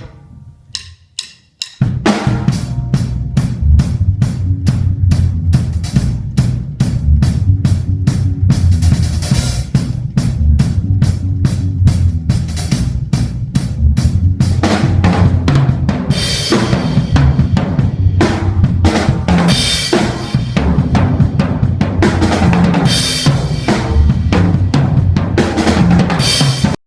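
Drum kit being played: a few single hits, then from about two seconds in a fast steady beat of kick and snare with cymbal crashes now and then.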